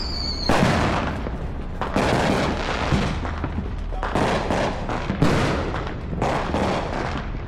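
Neighbourhood fireworks going off: a string of sharp bangs, about one a second, each trailing off in crackle, with a short high whistle from a whistling firework in the first half second.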